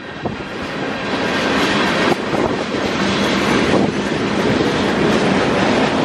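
Freight train cars rolling past: a steady rumble and rattle of steel wheels on the rails, with a few clicks as wheels cross rail joints. It grows louder over the first second or two, then holds.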